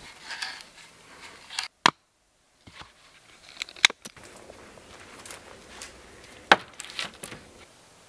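Hand woodworking in short separate bursts: a hand auger scraping as it bores into a log, then knife strokes cutting into a wooden stake. Sharp single clicks about two, four and six and a half seconds in, with a moment of dead silence just after two seconds.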